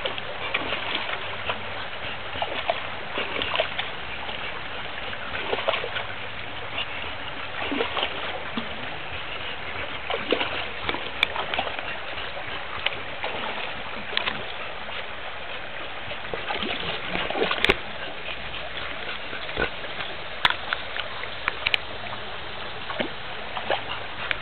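Shallow creek water running steadily over rock, with a dog wading through it and splashing; scattered short splashes and a few sharp clicks.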